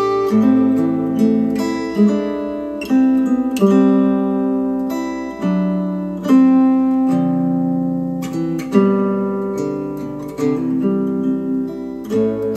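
Acoustic guitar music, plucked notes ringing and dying away one after another, played back through a pair of Q Acoustics 3030i bookshelf speakers driven by an Arcam SA10 amplifier.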